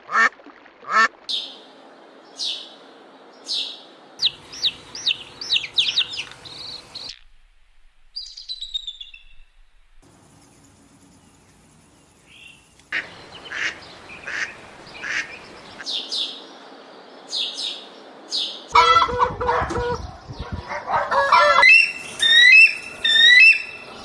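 A run of bird calls: short chirps and whistles, a lull about a third of the way in, then harsher honking calls followed by a quick repeating series of rising-and-falling calls near the end. The passages change abruptly from one to the next.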